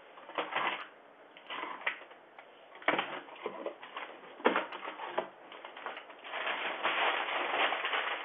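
A parcel's packaging being torn open and rustled in short bursts, then a longer stretch of rustling near the end, heard through a doorbell camera's tinny microphone.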